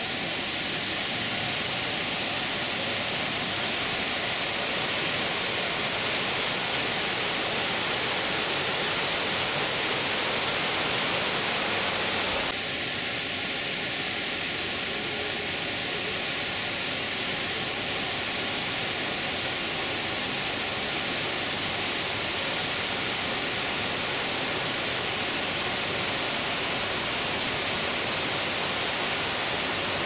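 Tropical rainforest stream running fast over boulders: a steady rush of white water. About twelve seconds in the sound shifts abruptly and becomes slightly quieter.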